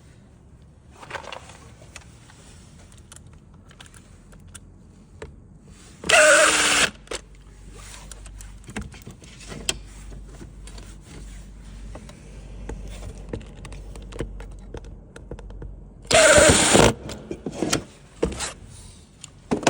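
A cordless drill/driver running in two short bursts, each under a second, about ten seconds apart: screws being driven to fix drawer slides to wood. Light clicks and knocks of handling between the bursts.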